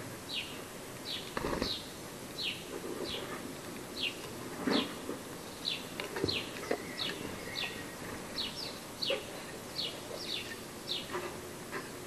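House sparrow chirping over and over, short falling chirps about two a second, with a few light taps of pecking on the planter rim.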